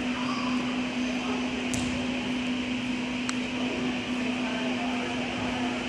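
Steady hum and hiss of an indoor sports arena's room noise, with two brief sharp clicks about two and three seconds in.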